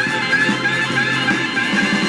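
Rock music playing: electric guitar with drums, a wavering guitar line held over a steady beat.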